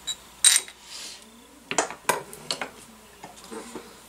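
Small metal parts and tools clinking and tapping as they are handled and set down on a metal work surface: one bright, ringing clink about half a second in, then a string of lighter clicks and knocks.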